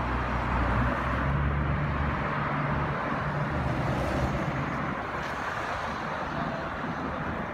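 Road traffic: a car's engine hum and tyre noise as it passes close by, loudest in the first couple of seconds and easing after about three seconds, over a steady traffic wash.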